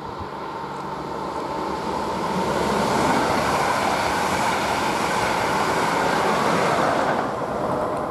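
Red double-deck regional passenger train, pushed by an electric locomotive at the rear, passing close by on electrified track: wheel-and-rail rumble grows louder as it approaches, holds at its loudest for several seconds as the coaches go by, and eases a little near the end.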